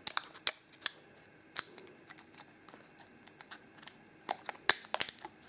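Scissors snipping through thin sheet metal cut from a beer can, making a series of sharp snips: a few close together at the start, one about a second and a half in, and a quick cluster near the end.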